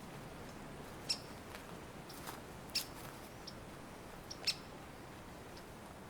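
Short, sharp chip calls of a small bird in the woods, three of them evenly spaced about a second and a half apart, over faint steady background hiss.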